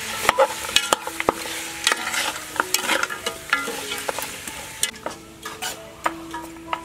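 A metal ladle stirs and scrapes chunks of meat and bone in a stainless steel pot, clattering and knocking against the pot many times. The meat sizzles as it fries, and the sizzle fades in the second half.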